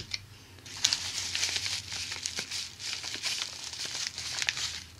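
Padded kraft bubble mailer crinkling and rustling as hands open it and rummage inside, with many small sharp crackles, starting about a second in. A single light tap right at the start.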